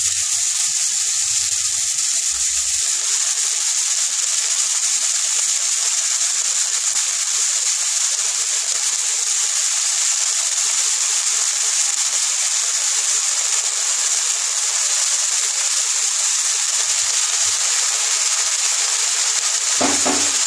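Chopped red spinach (lal shak) sizzling in hot mustard oil in a wok: a loud, steady, high hiss as the wet leaves fry.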